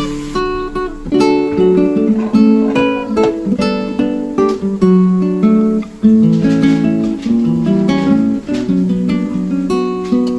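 Background acoustic guitar music, plucked and strummed notes, with a brief dip about six seconds in.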